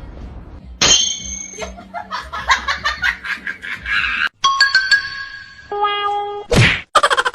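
Choppy edited music and sound-effect snippets with abrupt cuts: a sharp hit, a run of quick notes, chime-like ringing tones, a short swish, then fast pulsing beats.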